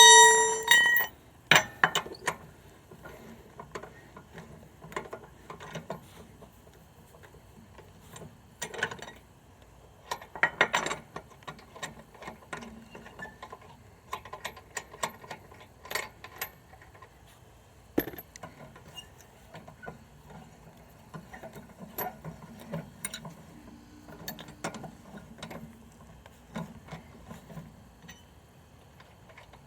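Tire iron turning lug nuts off a car wheel by hand: scattered metal clicks and clinks. A loud, ringing metal clang comes right at the start.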